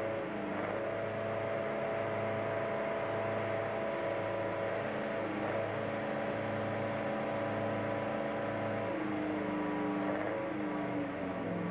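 Diesel shunting locomotive's engine running at steady revs while working a train of tank wagons; its pitch drops about nine seconds in as the revs come down.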